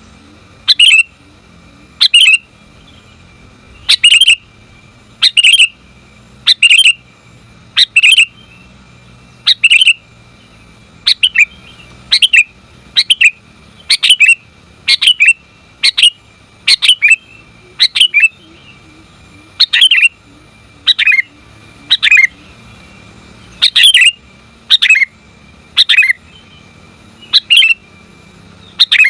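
Sooty-headed bulbul (kutilang) giving short calls over and over, about one every second or so, each a brief note. This is the call of a female bulbul, used to lure males into answering.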